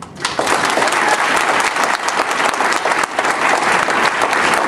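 Audience applauding: many hands clapping at once, breaking out abruptly and holding steady.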